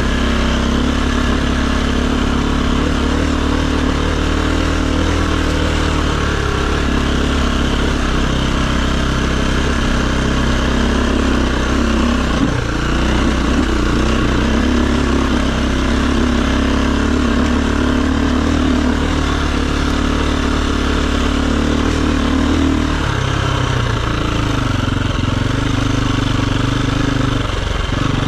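Dirt bike engine running steadily on a trail ride, its pitch rising and falling with the throttle; it dips briefly about twelve seconds in and drops lower for a few seconds near the end before picking up again.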